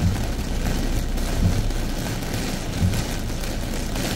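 Heavy tropical rain on a moving car, a steady loud rush, with low thumps about every second and a half.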